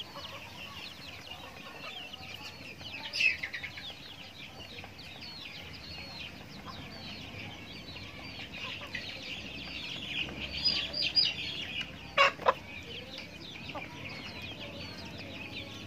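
Backyard chickens feeding, with a steady chatter of short, high chirps and clucks. A louder call comes about three seconds in, and two sharp knocks come close together near the end.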